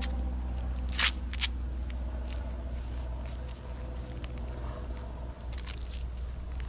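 Brief rustles and scrapes of a Combat Application Tourniquet's nylon strap being handled: a few short strokes about a second in and again near six seconds, over a steady low rumble.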